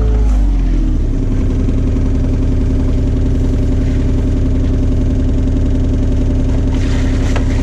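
John Deere 35G mini excavator's diesel engine dropping from high revs to a lower speed within the first second or so, then running steadily. A few knocks near the end.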